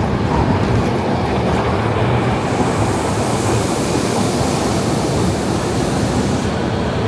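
Train running in the station with a steady rumble. A high hiss comes in about two and a half seconds in and cuts off suddenly near the end.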